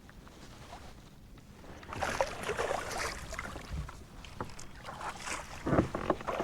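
Water splashing and scattered knocks against a kayak as a small hooked bass is brought to the boat, starting about two seconds in after a quiet start.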